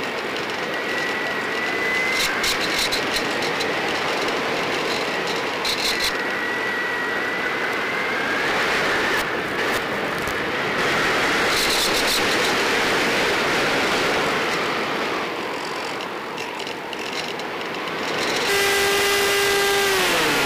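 Steady rushing of air and the electric motor of a Multiplex EasyStar RC plane as heard by its onboard camera's audio, with short bursts of crackle. Near the end a pitched motor whine comes in, holds, then drops in pitch as the plane dives low.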